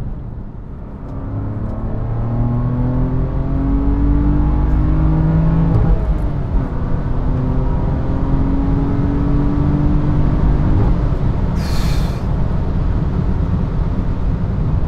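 BMW M3 F80's twin-turbo straight-six, heard from inside the cabin, pulling hard in one gear, then a shift with a short dip about six seconds in, then pulling again in the next gear before easing off. A short hiss comes near the end. The exhaust has an aftermarket midpipe.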